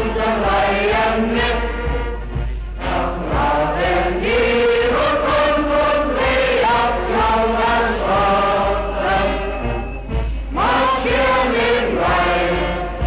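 Many voices singing in unison, a massed choral song with short breaks between lines, over a steady low hum from an old film soundtrack.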